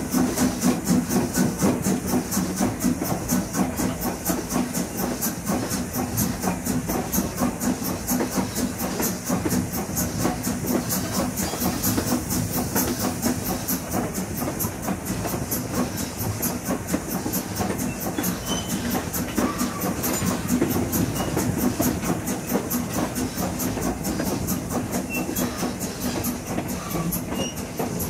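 Passenger railroad car rolling along the track, heard from aboard: a fast, steady clatter of wheels on rail over a constant rumble.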